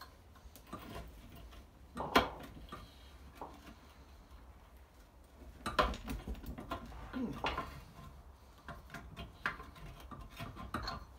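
Pliers (grips) clicking and clinking against a brass tap fitting and a ceramic basin as the tap nut is gripped and worked loose. A sharp knock about two seconds in, then a busier run of clicks and scrapes from about six to seven and a half seconds.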